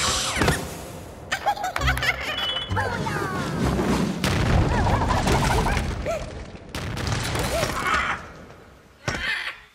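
Cartoon soundtrack: background music mixed with sound effects, including thuds and crashes, and short wordless vocal sounds from the animated characters.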